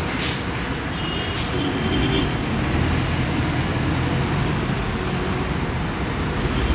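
Coach bus diesel engine running as the bus creeps past in slow, jammed traffic, with general road traffic around it. Two short hissing sounds come in the first second and a half.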